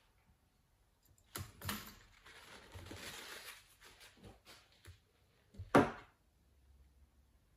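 Handling noises from a laptop heatsink-and-fan assembly being set into the plastic chassis: a few light clicks and knocks, then a longer paper rustle, then one sharp knock, the loudest sound, a little before the end.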